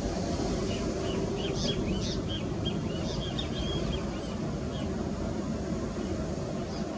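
Boeing 737 MAX's CFM LEAP-1B jet engines running at low power, a steady rumble as the airliner rolls along the runway after landing. Small birds chirp in a quick run of short calls from about one to three and a half seconds in.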